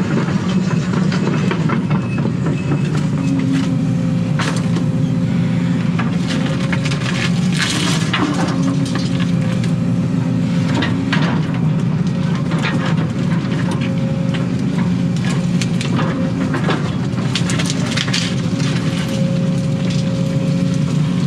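Excavator's diesel engine running steadily, heard from inside the cab, while the bucket digs and rips out a stump. Sharp cracks and snaps of roots and wood break over the drone again and again.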